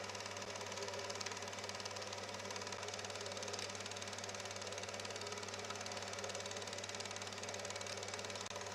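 Bauer T10 S Normal 8 film projector running: a steady, fast mechanical clatter from the film transport over a low, even motor hum.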